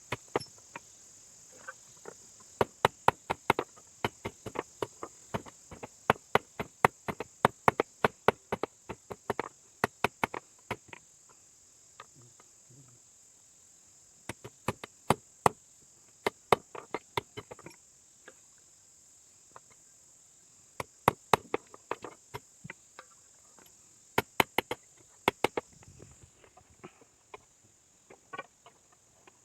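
Hand hammer striking iron on an anvil in runs of quick, sharp blows, about three a second, with pauses between the runs, as the spear head is forged. A steady high chirring of crickets runs underneath.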